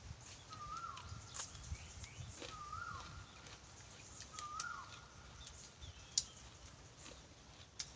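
A bird repeating one short whistled call, rising then dropping, about every two seconds, with a few sharp light clicks in between.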